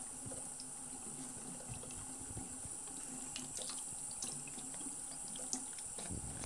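Bathroom faucet running a thin, steady stream into a sink, with small sharp splashes and drips that come more often in the second half as a kitten pushes its head and paw into the stream.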